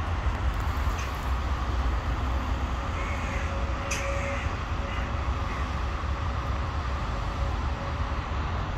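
Steady outdoor background noise with a constant low rumble, and a few faint short calls about three to four seconds in.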